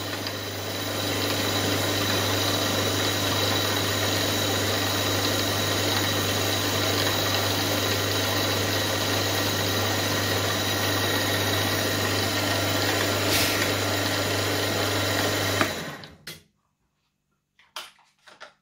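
Small milling machine's spindle running steadily while drilling small holes in a brass part, then switched off near the end and winding down quickly, followed by a few faint clicks.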